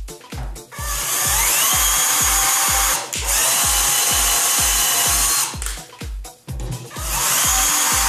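A power drill running in three long bursts, its whine rising as it spins up at the start of the first. Background music with a steady beat plays under it.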